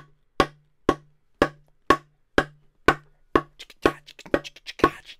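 Claw hammer striking a wooden board in steady repeated blows, about two a second, each a sharp knock with a short ring. From about four seconds in, smaller extra knocks fall between the main blows.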